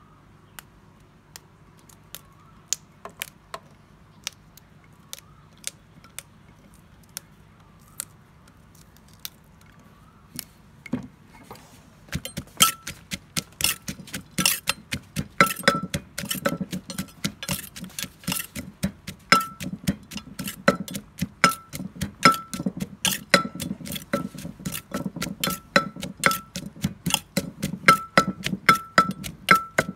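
Long green beans snapped by hand into a clay mortar, a sharp click every second or so; about twelve seconds in, a wooden pestle starts pounding in the clay mortar, a few strokes a second, with a metal spoon clinking against the clay and ringing briefly on many strokes.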